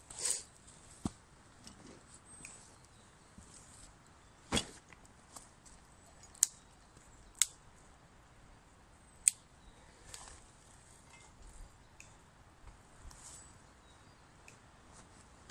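About six sharp, separate clicks at irregular gaps of one to a few seconds, over a faint steady hiss.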